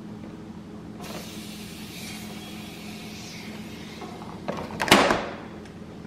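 A plastic blister package being handled and slid out of a metal toolbox drawer: a soft rustle, then one loud scrape about five seconds in, over a steady low hum.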